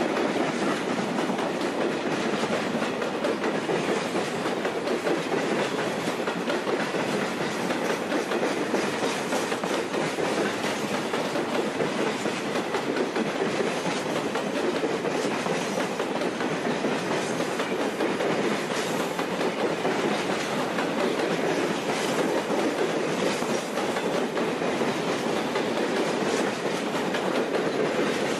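A freight train of empty open-top hopper cars rolling past, a steady rumble with the clickety-clack of wheels over rail joints.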